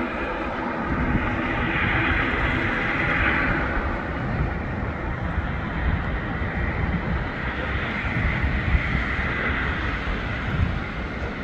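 ATR 72-600 turboprop airliner's Pratt & Whitney PW127 engines running: a steady rumble with a hissing whoosh that swells twice, about two seconds in and again about eight seconds in.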